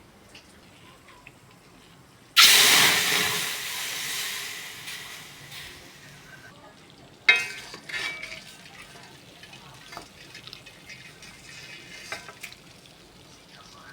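About two seconds in, food hits hot oil in a pan with a sudden loud sizzle that fades over a few seconds. Later a utensil clanks against the pan, followed by light stirring and clinking.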